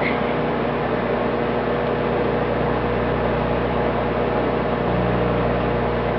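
Microwave oven running mid-cycle: a steady hum of the magnetron transformer and cooling fan.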